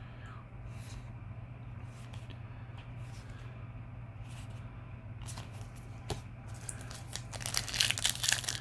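Foil trading-card booster packs being handled and torn open: a few faint taps at first, then crinkling of the wrappers that grows loud about seven seconds in, over a steady low hum.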